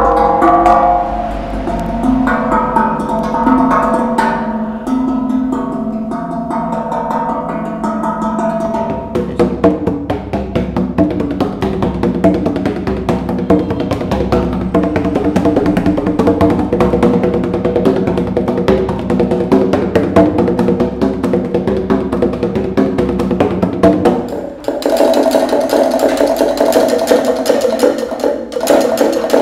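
Percussive music played on homemade sound sculptures. For the first nine seconds, tongue drums cut into old metal tanks are struck by hand and ring out melodic notes. Then comes a dense run of fast strikes with pitched notes, and about twenty-four seconds in the sound changes abruptly to a higher, thinner texture with the low end gone.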